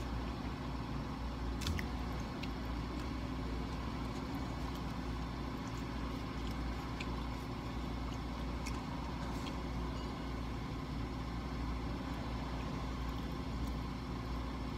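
Steady low mechanical hum heard from inside a car cabin, with a few faint clicks scattered through it.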